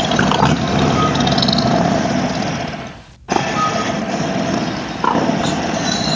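Harley-Davidson motorcycle running on the move, its engine mixed with steady wind noise. The sound cuts out briefly about three seconds in.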